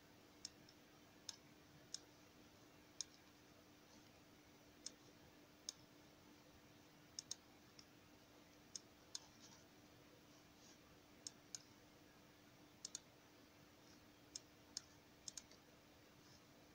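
Computer mouse button clicking, about eighteen sharp single clicks at irregular intervals, some in quick pairs. A faint steady hum sits underneath.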